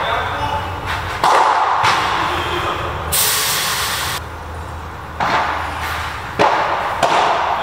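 Padel ball being hit back and forth with paddles and bouncing off the court: sharp, separate hits about a second apart, each with a short echo. A hiss lasting about a second comes in about three seconds in.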